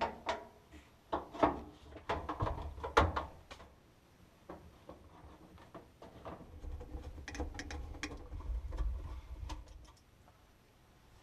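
Scattered clicks and knocks of plastic parts being handled and fitted as a clothes dryer's two-piece plastic lint-filter housing is put back together. A low rumble joins in about halfway through, with more clicks over it.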